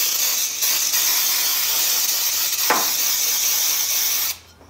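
Aerosol can of brake cleaner spraying in a steady hiss over an engine bay, cutting off suddenly near the end.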